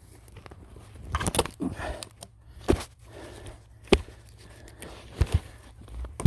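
Scattered knocks, thuds and scrapes of wood being handled and set in place, with a few sharp strikes and the loudest near the end. The chainsaw is not running.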